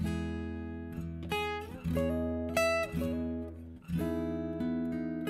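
Background music: fingerstyle acoustic guitar playing a slow melody over sustained chords, the notes plucked one at a time.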